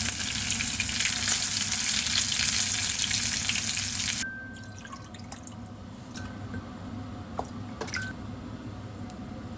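Kitchen tap running into a sink, shut off abruptly about four seconds in, followed by a few faint light clicks.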